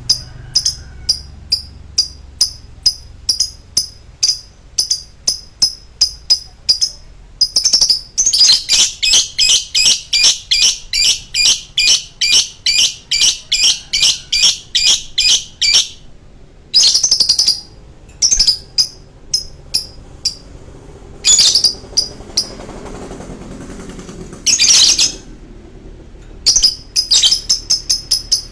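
Lovebird singing rapid, shrill chirps that run about eight seconds in into a long unbroken chattering trill lasting some eight seconds, followed by shorter bursts. This long continuous trill is the 'long choking' song that bird keepers prize in a lovebird.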